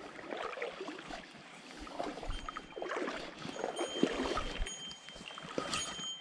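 Irregular water sloshing and rustling, with a few low thumps, as an angler handles fly line at the edge of a shallow creek. A faint thin high tone runs through the second half.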